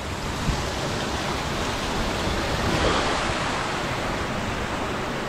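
Steady rushing noise of wind and water at the lake edge, swelling a little about three seconds in.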